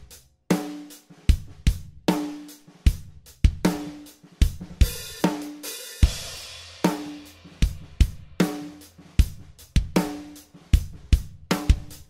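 Drum kit groove: snare with a ringing tone and bass drum beats at a steady pace under cymbals. About five seconds in, a Saluda Symbolic Vented Crash is struck and rings out as a bright wash for over a second.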